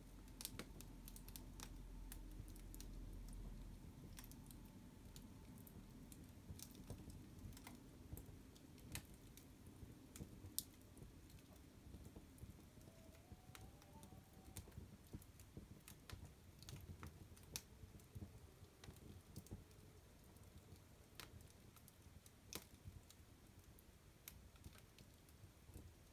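Fire crackling: faint, irregular sharp pops and snaps over a low, steady rustle of burning.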